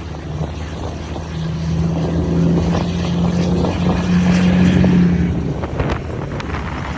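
Volvo FH truck engine rumbling through an aftermarket exhaust in one steady low note, swelling louder from about a second and a half in and easing off after about five seconds as the truck passes.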